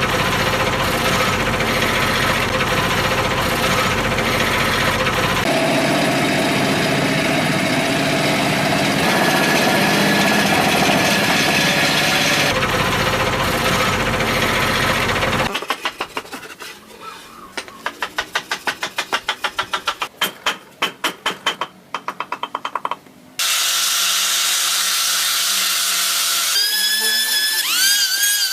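Power tools working wood: a steady grinding and cutting noise in several edited stretches, then a run of quick, even strokes at about three a second, then the tool noise again, with a rising whine near the end as a tool spins up.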